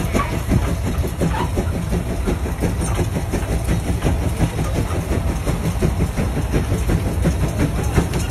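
Case steam traction engine chuffing in an even, rapid beat over a low rumble as it works under load pulling a gang plow.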